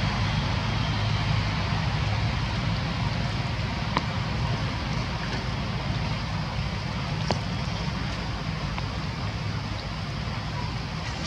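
Steady outdoor background noise: a low rumble with a hiss over it, and two faint clicks about four and seven seconds in.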